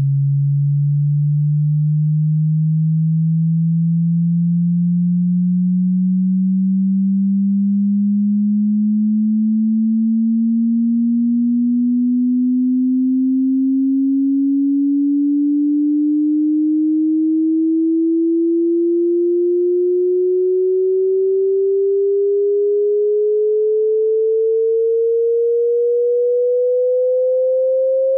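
A pure sine test tone gliding slowly and evenly upward in pitch, from a low hum to a mid-range tone, about two octaves, at a constant loudness. It is part of an exponential frequency sweep through the range of human hearing, used as a hearing test.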